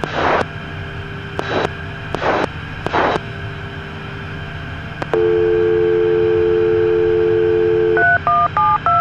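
Four short bursts of radio static as the mic is keyed four times to trigger a ground communication outlet. About five seconds in, a telephone dial tone comes over the aircraft radio and holds for three seconds, and near the end touch-tone dialing beeps begin, all over a steady cockpit hum.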